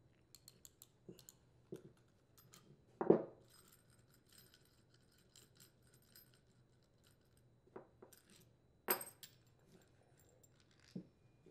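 Small metallic clicks and clinks of a steel nut, washers and bolt being unthreaded and pulled out of a tiller clutch drum and bearing, with a louder clink about three seconds in and another near nine seconds.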